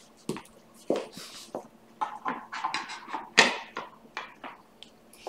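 Irregular knocks and clicks of handling as a cut-out foot piece is fitted onto the base of a painted figure board; the loudest knock comes about three and a half seconds in.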